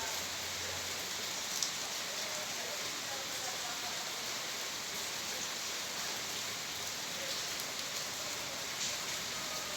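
Steady rain falling without thunder, with the odd louder drop standing out from the hiss.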